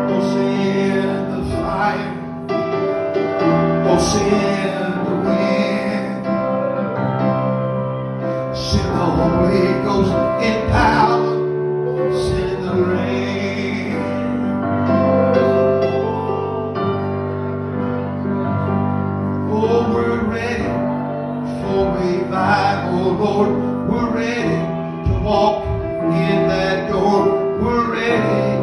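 Live worship music: an electric keyboard playing held chords with male and female voices singing along.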